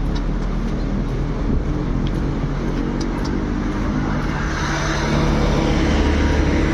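Steady road traffic. A motor vehicle passes close and grows louder about four and a half seconds in.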